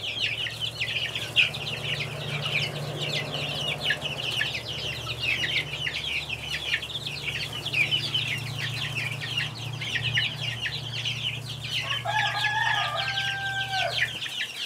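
A pen of young chicks peeping continuously in a dense chorus of short, high, falling peeps over a steady low hum that stops just before the end. Near the end a rooster crows for about two seconds above them.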